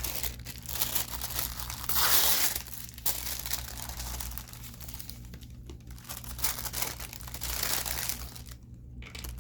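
Action-figure packaging being handled: plastic and paper crinkling and crumpling in irregular bursts, loudest about two seconds in, with some tearing.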